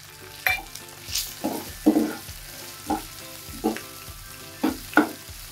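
Steel spoon stirring onions and spices frying in hot ghee and oil in a nonstick kadhai: a low sizzle under short scraping strokes of the spoon against the pan, about one or two a second.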